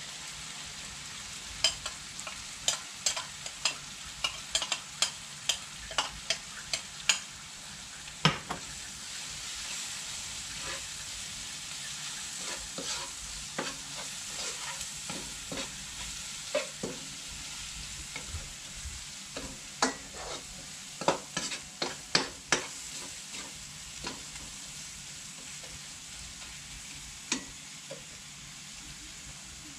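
Curry powder and garam masala frying in oil in a pan, a steady sizzle, while a metal spoon stirs and clinks against the pan in quick runs of strikes, one over the first third and another about two-thirds through.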